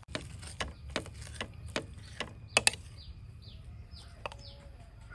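A metal spoon clicking sharply against a plate about twice a second while an omelette is cut and scooped, with a double click the loudest. Later, a few short falling chirps from a bird.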